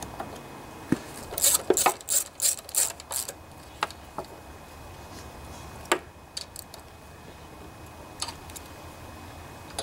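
Metal hand tool clicking and clinking against the carburetor fittings of a Honda HRB215 mower engine as they are tightened. A quick run of clicks comes in the first few seconds, then scattered single clicks.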